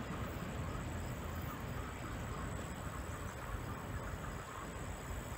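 Diesel freight locomotive working up a steep grade some way off, a steady low rumble.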